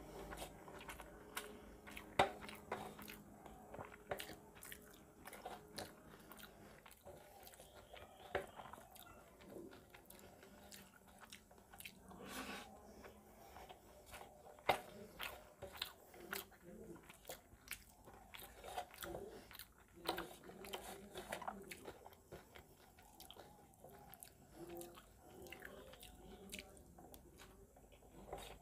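Close-miked chewing and wet mouth sounds of a person eating rice and fish curry by hand, with irregular soft smacks and clicks, along with fingers gathering rice on a metal plate.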